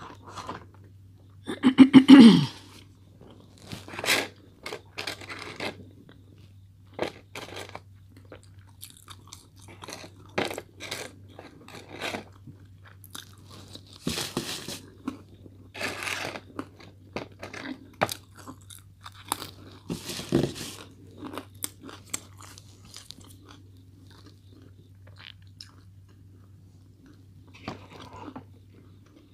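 Close-miked eating sounds: a person biting and chewing a fish sandwich and french fries, with irregular crunches and wet smacks. The loudest of them comes about two seconds in and carries a short hum of the voice.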